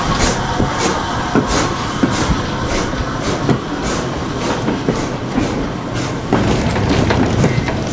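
Train running along the track with a steady rumble and a regular beat about every half second.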